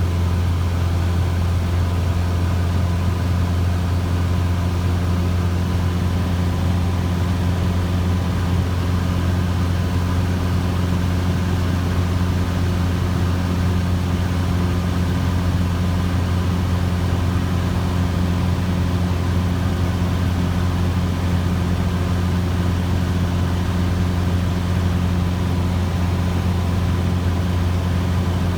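Cessna 150J's Continental O-200 four-cylinder engine and propeller running steadily at an unchanging pitch, a deep, constant drone.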